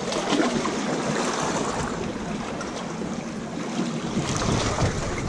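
Small waves washing and splashing against the rocks of a jetty, with some wind on the microphone.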